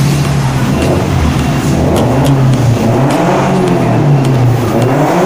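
Offroad race car engine running loudly, holding a steady note at first, then revved up and down in several swells from about two seconds in.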